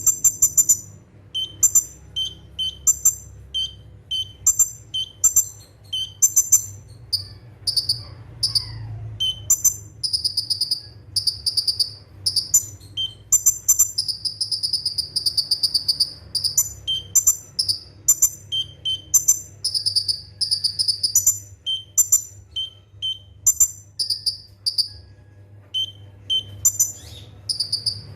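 Kolibri ninja sunbird singing in rapid bursts: short high chirps repeated in quick series, several running into long fast high trills, about ten seconds in and again around the middle. A faint steady low hum underneath.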